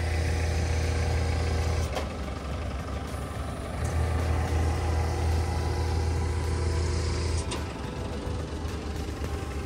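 A heavy engine running with a deep, steady hum that grows stronger twice and drops back each time with a short click.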